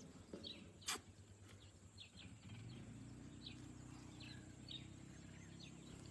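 Wild birds chirping in short, scattered high calls, with one sharp click about a second in and a low, steady hum that starts about halfway through.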